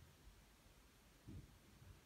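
Near silence: room tone, with two faint low thuds, one about a second and a quarter in and a smaller one near the end.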